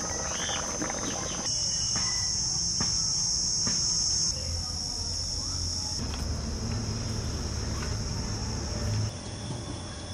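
A steady, high-pitched insect chorus that steps up and down in level a few times, with a low rumble underneath in the second half.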